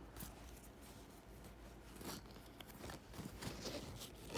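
Faint rustling and light clicks of small doll accessories being handled, with a sharper click near the end.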